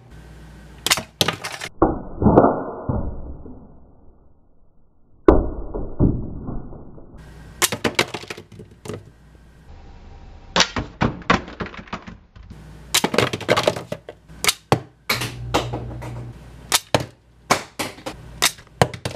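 Repeated sharp plastic clicks and snaps of a Deluxe Flying Baymax action figure being handled. About two seconds in, and again from about five seconds, the toy plays stretches of electronic sound effects through its small built-in speaker.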